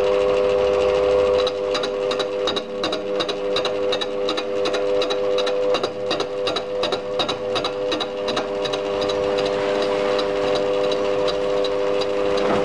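Metal lathe running with a steady whine, and from about a second and a half in, a fly cutter taking an interrupted cut on a cylinder casting, its tool striking the metal once per turn in regular ticks about three to four times a second that fade near the end.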